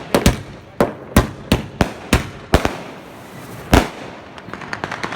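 A 50-shot sky-shot fireworks cake firing: about ten sharp bangs in quick, irregular succession, the loudest nearly four seconds in, followed by a run of lighter crackling pops near the end.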